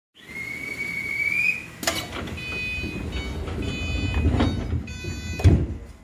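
Train door-closing chime: a steady high tone for about a second and a half and a sharp knock, then a run of electronic beeps. It ends about five and a half seconds in with a loud thump as the sliding doors shut.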